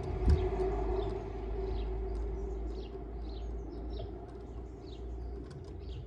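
Small garden birds chirping over and over in short calls, with a low rumble underneath. Just after the start comes a soft thump, as a jackdaw flaps in and lands on the wire by the feeder.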